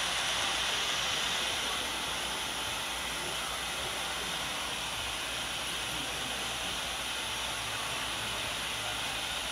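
Handheld hair dryers blowing steadily, a continuous airy hiss.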